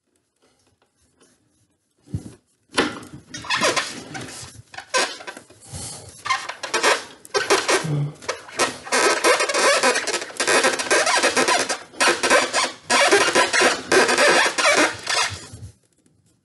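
Irregular scraping and rubbing of a trim panel being worked into place on a ceiling fan's metal motor housing. It starts about three seconds in and goes on for most of the rest, with quick uneven strokes.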